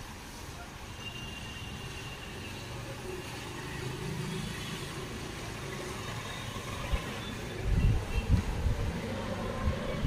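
Steady low rumble of street traffic, growing slowly louder, with heavy irregular low surges in the last two and a half seconds.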